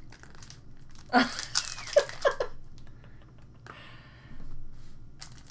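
Foil trading-card pack crinkling as it is handled and opened, with a burst of loud crackles about a second in and a softer rustle near the middle.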